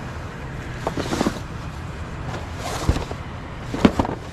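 Scrap being handled: clusters of knocks and clatters about a second in, near the middle and near the end, over a steady low engine hum from an idling vehicle.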